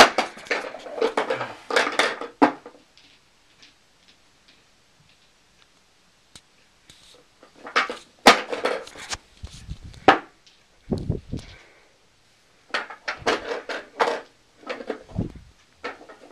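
Handling noise from the camera being moved about: bursts of rustling and rubbing, with a few low thumps and bumps.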